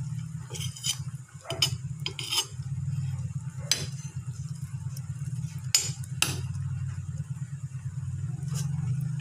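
Metal ladle stirring a pot of boiling vegetable soup, clinking and scraping against the stainless steel pot several times, over a steady low hum.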